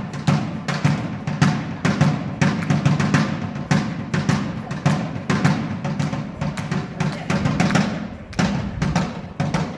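A drum kit being played: a dense, continuous run of drum hits.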